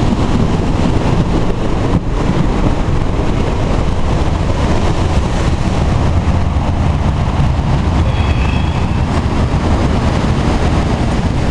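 Surf breaking on a boulder and black-sand beach, mixed with wind rumbling on the microphone: a loud, steady, deep noise.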